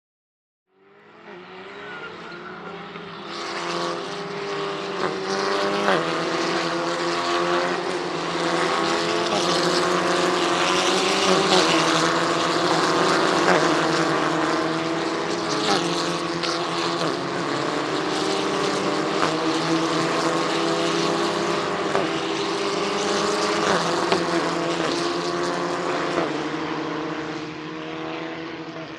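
Racing car engines running hard, fading in about a second in after a cut, loud through the middle with several sharp gear-change breaks and steps in pitch, then easing off near the end.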